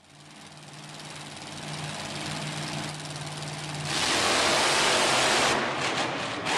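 Monster truck engines running in an arena: a steady low engine note at first, then about four seconds in a much louder full-throttle run as the trucks take off over the course.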